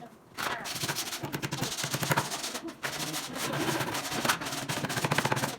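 A woodworking power tool rattling rapidly and steadily, starting about half a second in.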